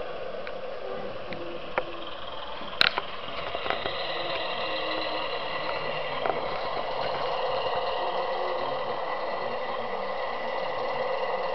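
Model BR Class 101 diesel multiple unit running on a model railway layout, with a steady drone from its sound decoder and motor that grows a little louder as the train comes near. A few sharp clicks sound about two and three seconds in.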